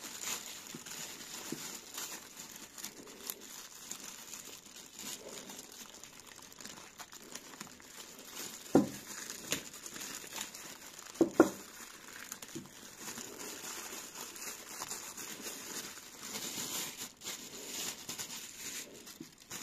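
Plastic wrapping being pulled and crumpled off a coiled power cord, crinkling throughout, with two louder knocks partway through.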